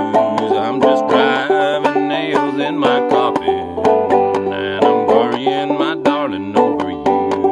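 Five-string banjo played clawhammer style in standard open G tuning, an instrumental passage of quick, steady plucked notes.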